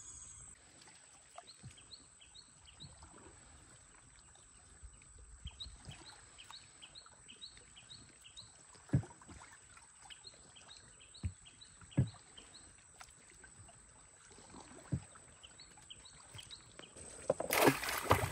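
Quiet river ambience on a wooden boat: runs of short high chirps and a steady high whine, with a few sharp knocks on the boat's wooden planks. Near the end, an object thrown from the boat lands in the river with a loud splash.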